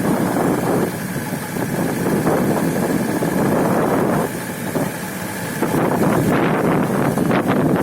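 Combine harvester's engine running, its sound easing back twice for a second or so.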